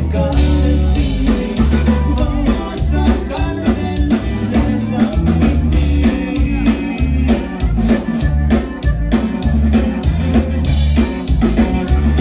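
Live Tejano conjunto band playing an up-tempo dance number, with a drum kit keeping a steady beat under a strong bass line.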